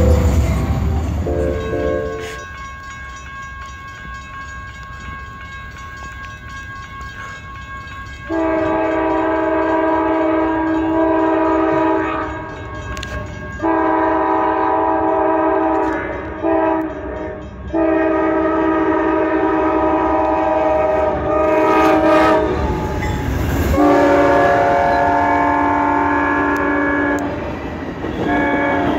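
Amtrak P42DC locomotive air horn sounding a series of long chord blasts, broken by short gaps, as a triple-headed passenger train approaches. From about three-quarters of the way in, the train's rumble rises as it passes, with the horn still sounding. It opens with a couple of seconds of a freight diesel locomotive rumbling by.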